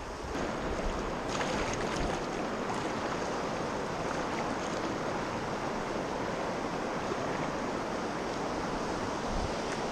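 River rapids: fast water rushing steadily over rocks, slightly louder after the first second.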